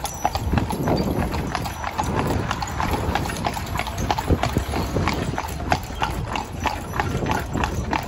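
A carriage horse's hooves clip-clopping on a tarmac road in a steady, even rhythm as it pulls the car along.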